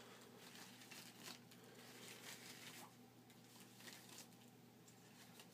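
Faint rustling and crinkling of the paper wrapper of a sterile Foley catheter kit as its flaps are unfolded, a few soft crackles over a low steady room hum.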